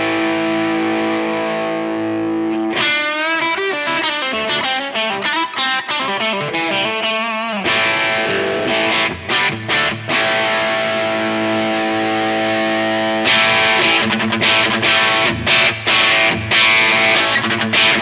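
Electric guitar played through a NUX 63 Diamond, a Vox AC30-style overdrive pedal, with a mild crunchy overdrive. Ringing held chords give way about three seconds in to bent, wavering single-note lines, then held chords again. From about thirteen seconds in, the strummed chords turn brighter and choppier.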